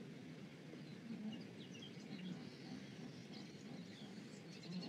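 Faint wetland ambience: small birds giving scattered short, high chirps over a low, even background wash, with a brief quick trill near the end.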